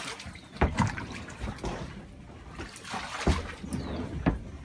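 Water trickling from a hose into a tub of coffee cherries while the cherries and water are stirred, with several sudden loud strokes, about two-thirds of a second, three and a quarter and four and a quarter seconds in.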